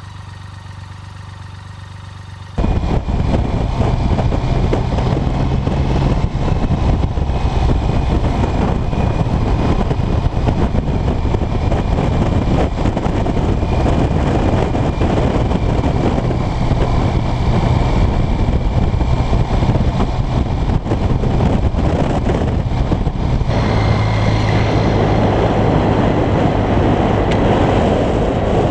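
BMW K75 three-cylinder motorcycle engine running quietly at a standstill. About two and a half seconds in, it gives way to the loud sound of the bike being ridden: the engine pulling steadily under heavy wind rush over the camera microphone.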